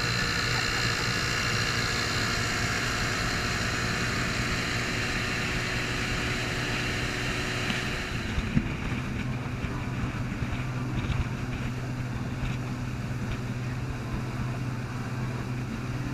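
Antique outboard motors running steadily at cruising speed on small boats, with water rushing past the hull. About halfway through, the sound switches to another outboard's steady, lower hum.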